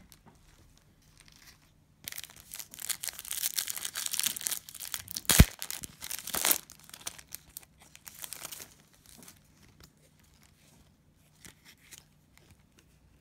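A cellophane trading-card pack wrapper being torn open and crinkled: dense crackling starting about two seconds in and lasting several seconds, with one sharp snap about halfway through.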